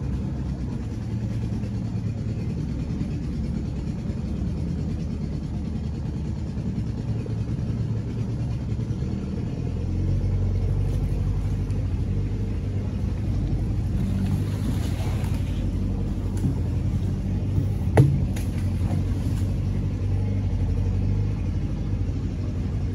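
Boat's outboard motor running steadily at low speed, a low rumble that grows a little louder about ten seconds in. A single sharp knock stands out about eighteen seconds in.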